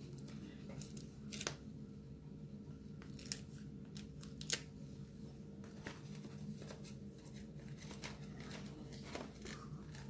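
Paper and card being handled: faint rustling with a few short, crisp ticks and tearing sounds scattered through, over a low steady hum.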